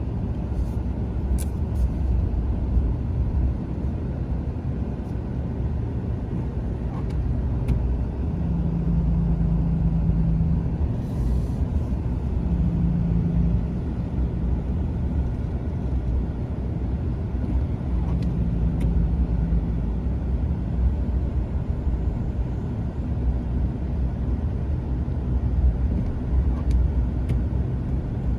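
Steady low rumble of a car on the road, with a brief low drone coming in three times.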